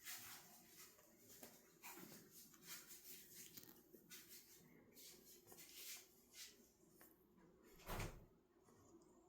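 Faint scattered rustling and light knocks, with one louder thump about eight seconds in.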